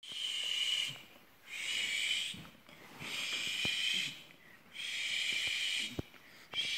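A person's breathy hiss, repeated in strokes of about a second with short pauses between, roughly every two seconds.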